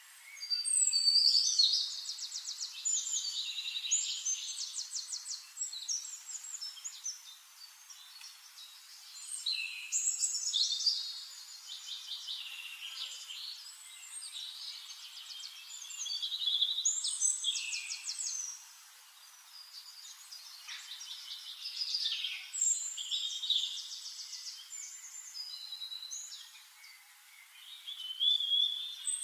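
Wild songbirds singing, with a burst of high, fast trilling song about every six seconds and quieter chirps in between.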